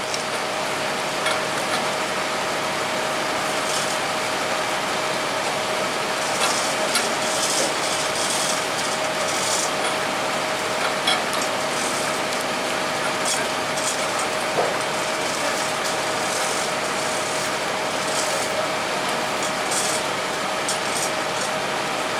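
A machine runs steadily with a constant hum, while a ring-type pipe cutter clamped on a 20-inch steel pipeline is cranked around the pipe, giving short scraping and clicking bursts at intervals.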